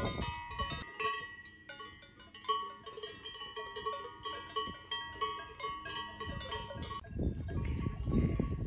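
Cowbells on grazing cattle clanking irregularly, several bells ringing at once with uneven metallic tones. Near the end the bells fade and a low rumbling noise comes in.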